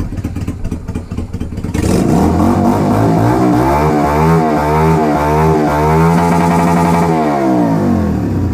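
Yamaha XV250 Virago's air-cooled V-twin running through slash-cut exhaust pipes fitted with 45 mm aftermarket baffles: idling at first, then revved from about two seconds in, the revs climbing, blipped up and down several times, held high and dropping back to idle near the end.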